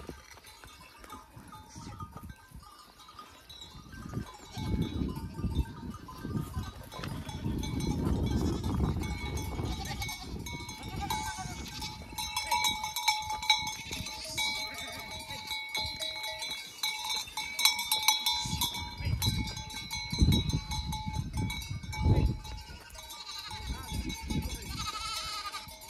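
Herd of goats moving through scrub: goats bleating now and then, and bells tinkling steadily from about ten seconds in, over low rustling and handling noise.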